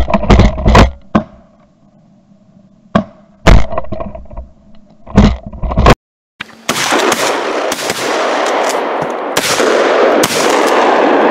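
Shotgun shots at a flock of pigeons: a rapid string of blasts, often two close together, through the first six seconds. After a brief break, a steady loud rushing noise carries on with a few more shots through it.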